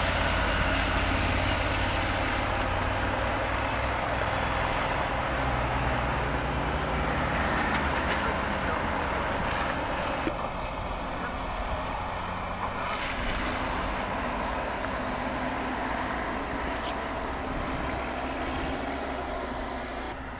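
Diesel engine of a tracked snow groomer running steadily as it works the snow. Its tone thins briefly about ten seconds in, with a steady whine.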